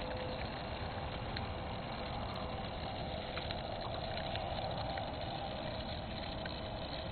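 The 5-gram electric motor and propeller of a BigMicroGyro micro RC autogyro buzzing steadily as it runs, over a steady low rumble.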